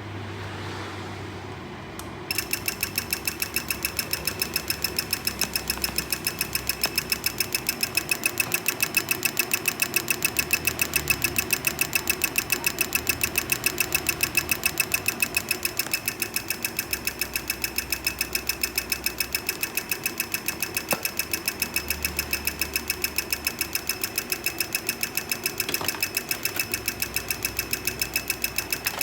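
An engine running with a rapid, even ticking and a steady high whine, which starts about two seconds in.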